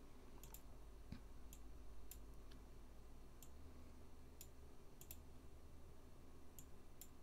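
Faint computer mouse clicks, about a dozen at irregular intervals, over a low steady hum.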